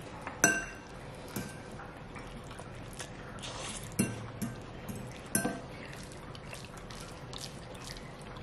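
Close-up eating sounds: a metal fork clinking several times against a metal baking sheet as alfredo ramen noodles are picked up, with wet chewing and slurping between the clinks.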